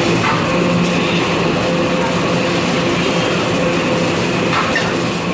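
XY AI 398D automatic kitchen towel roll packing machine running: a steady mechanical hum and rumble with a few faint clicks.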